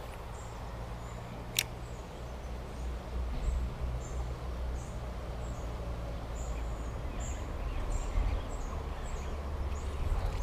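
Small stream flowing, with a steady low rumble. A bird gives many short, high chirps through the second half, and there is one sharp click about one and a half seconds in.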